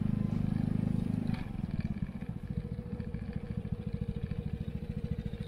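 Vespa GTS scooter's single-cylinder engine running at low speed. About a second and a half in the throttle eases off and it drops to a quieter, even throb as the scooter rolls along slowly.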